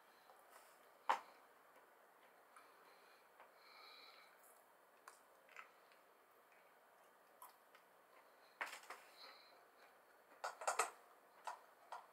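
Edamame pods being squeezed and bitten open at the mouth, with soft chewing: scattered sharp clicks and snaps, the loudest about a second in, and a quick cluster of clicks near the end.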